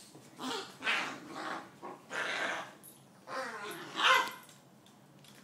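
Puppy barking in play: a run of about half a dozen short barks and yelps over about four seconds, one sliding down in pitch, the loudest near the end.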